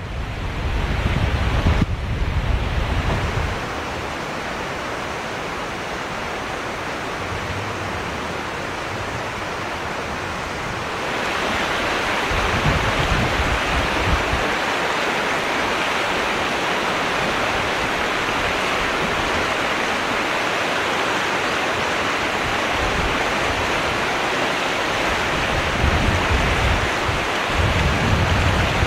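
River water rushing over shallow rapids, a steady rush that grows louder about eleven seconds in. Gusts of wind buffet the microphone at the start, a little after the midpoint and near the end.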